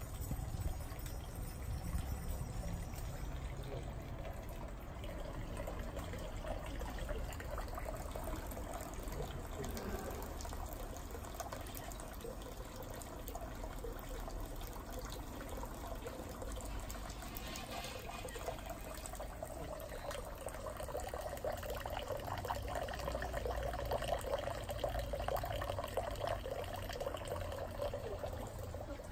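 Water pouring steadily from a bronze dragon-head spout into a stone purification basin (chozuya), a continuous splashing trickle that grows a little louder in the last few seconds.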